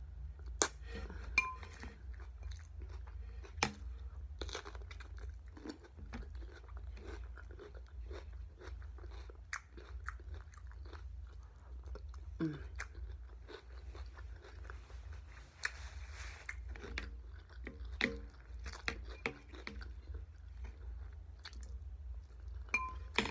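A person chewing close to the microphone, eating white rice, sausage and raw cucumbers, with many short crisp crunches scattered between softer chewing.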